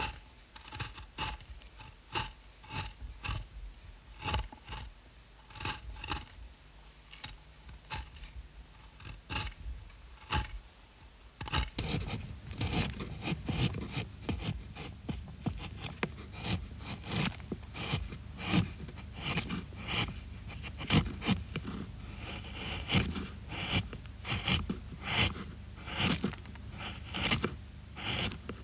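Hand-held carving knife slicing into wood in short repeated strokes, each a crisp scrape as a shaving peels away, at about two a second. About eleven seconds in, the strokes become quicker and louder.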